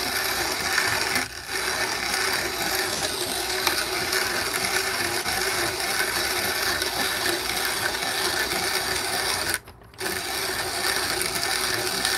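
ROK manual espresso grinder being turned by hand, its burrs grinding coffee beans at a fine espresso setting (5 clicks) with a steady crunching, grinding rasp. It stops briefly about a second in and again near the end.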